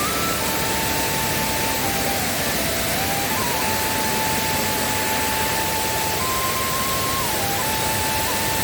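Steady rushing roar of a rain-swollen waterfall in full flow. Over it, a thin melody plays one plain note at a time, holding each for a second or more before stepping to another.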